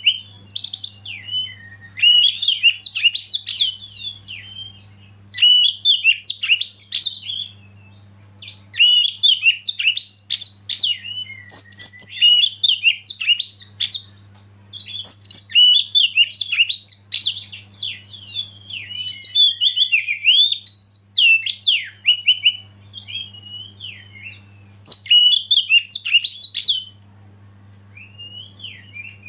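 Oriental magpie-robin (kacer) singing a rapid, varied song of whistles, trills and chirps in phrases of a few seconds with short pauses between them, over a low steady hum.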